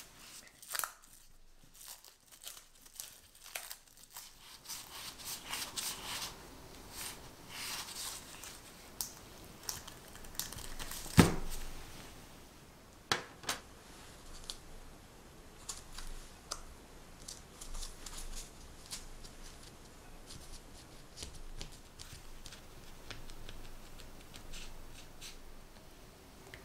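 Crinkling and tearing of plastic film and soft sponge cake handled with gloved hands around a metal cake ring, with scattered light taps. One sharp knock about eleven seconds in is the loudest sound.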